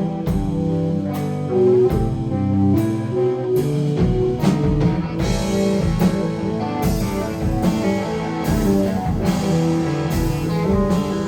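Live rock band playing an instrumental section without vocals: electric guitar lead over a steady drum beat.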